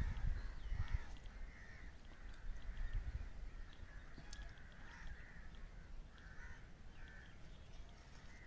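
Birds calling outdoors: a string of short, harsh calls about once a second, over a faint low rumble.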